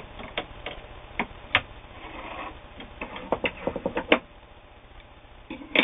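Scattered clicks and knocks from handling an all-metal Singer 401A sewing machine as the sewn material is taken out from under the presser foot, with a brief rustle about two seconds in and the loudest knock at the very end.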